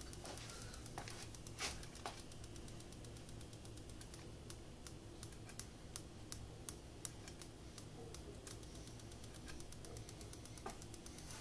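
Faint, irregular light clicks, several in quick runs, over a low steady hum.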